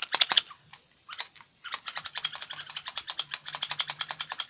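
Handheld light-up spinning toy clicking: a few loud clicks at the start, then a steady rapid run of even clicks, about ten a second, over a faint low hum.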